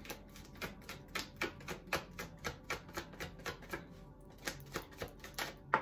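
Tarot cards being shuffled by hand: a quick run of soft card taps and slaps, about four a second, with a short break past the middle and a sharper slap near the end.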